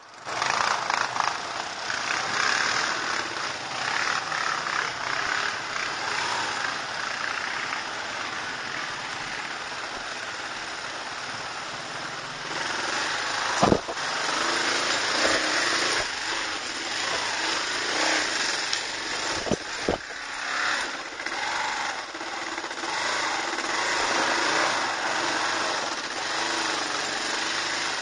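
Kawasaki KLR 650 single-cylinder four-stroke engine running as the motorcycle rides along and down a dirt forest trail, with a sharp knock about halfway through and two more a few seconds later.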